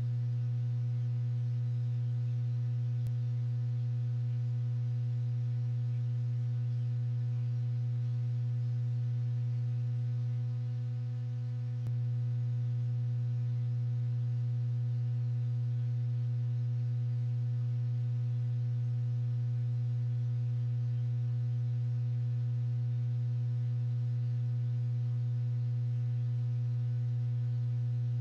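A steady, low electrical hum with a ladder of fainter higher overtones, briefly dipping about eleven seconds in.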